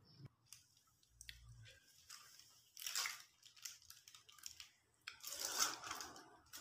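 Rustling of a paper food wrapper and tearing of fried chicken by hand, in a short crackly burst about three seconds in and a longer, louder one around five to six seconds in.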